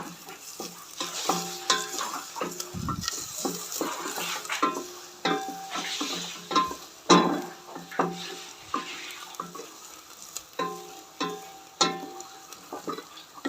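Garlic sizzling in hot olive oil in a pan while it is stir-fried. A utensil knocks and scrapes against the pan many times, and several of the knocks leave a short ringing tone.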